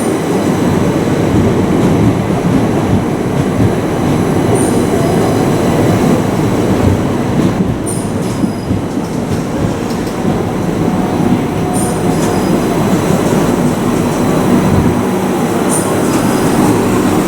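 Southern electric passenger train moving along the platform, with a steady rumble of wheels and running gear. Short high wheel squeals recur about every four seconds.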